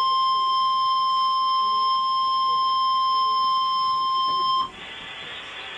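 NOAA Weather Radio's 1050 Hz warning alarm tone, the single steady, piercing tone that heralds a broadcast warning. It cuts off abruptly about four and a half seconds in, giving way to a steady hiss.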